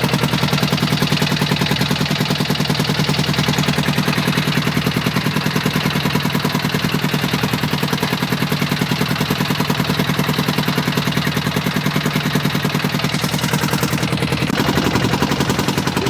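A small engine running steadily at low speed with a fast, regular knocking beat.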